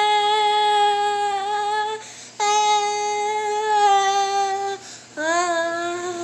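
A young girl singing on her own, holding three long notes in a row. The first is on the word "human", and the last is a little lower.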